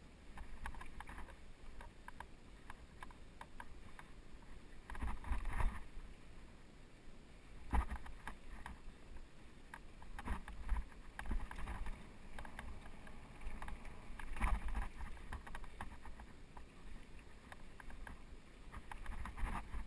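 Mountain bike rolling fast over rocky dirt singletrack: a steady patter of chain and frame rattles as the tyres hit stones, with heavier low thumps over the bigger bumps several times.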